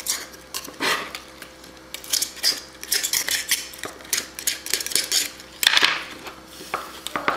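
Kitchen knife blade scraping and clicking against a geoduck clam's shell as it is worked between shell and body, in a string of short, sharp scrapes and taps.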